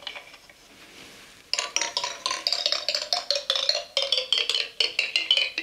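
A marble running down a Klangturm, a toy marble sound tree, strikes its leaf-shaped steps one after another in a quick run of ringing plinks. The run starts about a second and a half in.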